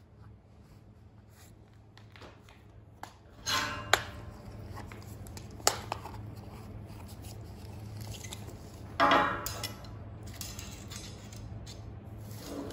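Scattered metallic clinks and knocks from a steel engineer's square and tape measure being handled and set against a steel beam, over a low steady workshop hum.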